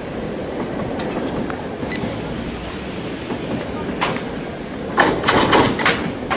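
Steady heavy rumbling and rattling, like a large vehicle or machine running, with single sharp clicks about one and four seconds in and a quick run of loud knocks and clatter about five seconds in.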